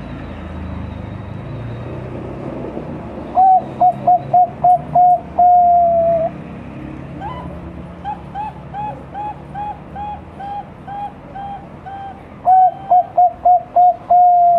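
Five-month-old Bangkok-bred zebra dove (perkutut) cooing: a quick run of short staccato coos that ends in one long drawn-out coo, falling at the end. It comes twice, with a fainter string of about a dozen separate coos in between.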